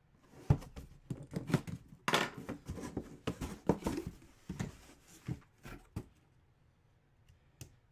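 Rustling, crinkling and clicking of card packaging being handled and opened by hand as a football hobby box is broken, with a longer tearing-like rustle about two seconds in. It stops about six seconds in.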